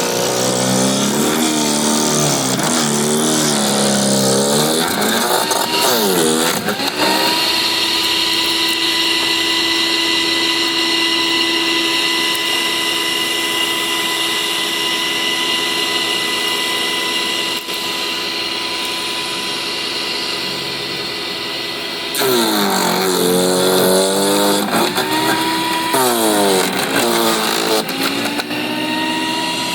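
Sun Joe CJ602E 15-amp electric wood chipper/shredder running, its motor bogging down and dropping in pitch again and again as a branch is fed in and shredded. It then recovers to a steady whine, and bogs down again about two-thirds of the way through.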